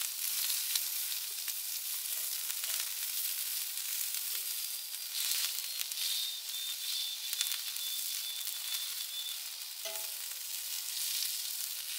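Sausages sizzling and frying steadily on a hot camp-stove griddle, with light clicks as a fork turns them.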